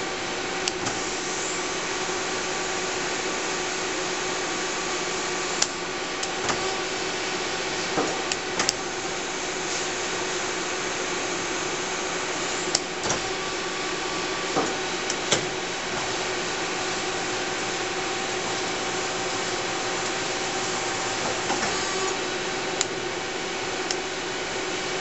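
1991 Mazak ST-20 CNC turning center running with a steady hum holding several constant tones, broken by a scattering of sharp clicks and clunks as the tailstock and its quill move up to the workpiece and back.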